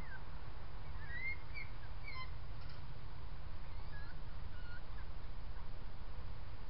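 Scattered short, high animal chirps and squeaks, each a quick rising or falling glide, a cluster of them in the first couple of seconds and a few more past the middle, over a steady low hum.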